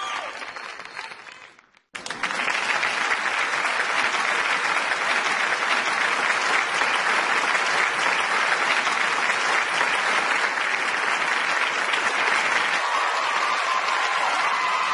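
Audience applauding at a runway show. The clapping fades out and cuts off just before two seconds in, then comes back at full strength and carries on steadily.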